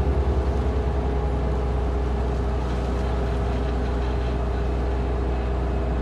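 Bobcat 873 skid steer's diesel engine running at a steady speed, a deep constant drone.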